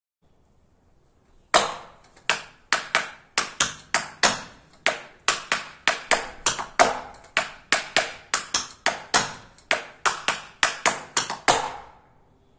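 Metal taps on tap shoes striking a portable dance board in a double buck time step (stamp, hop, flap, flap, step, step, then the same on the other side). Sharp clicks in an uneven, grouped rhythm begin about a second and a half in and stop about a second before the end.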